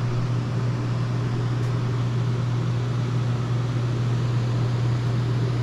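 RV rooftop air conditioner running: a steady rush of air from the blower over a constant low hum.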